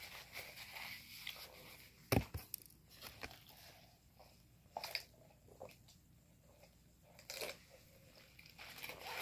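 Close-miked eating: chewing and mouth sounds, with scattered short crunches and clicks. A sharp knock about two seconds in is the loudest sound.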